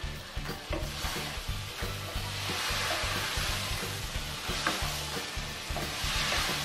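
Diced bottle gourd and potato sizzling in a pot as they are stirred and scraped with a spatula. The sizzle swells twice, about halfway through and again near the end.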